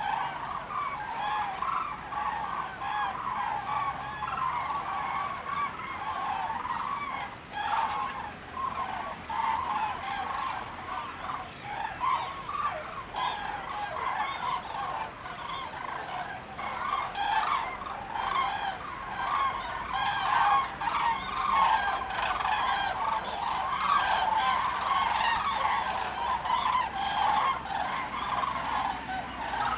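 A large flock of migrating common cranes calling in flight overhead: many loud, rolling calls overlapping into a continuous chorus.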